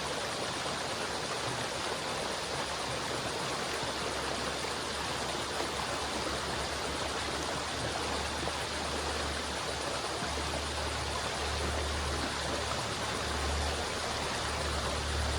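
River water flowing steadily in a continuous rushing wash. A low rumble builds underneath from about halfway through and is strongest near the end.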